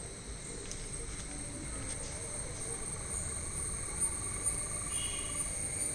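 Steady high-pitched chorus of insects, like crickets, from the garden vegetation. A lower, rapidly pulsing trill joins for about three seconds in the middle.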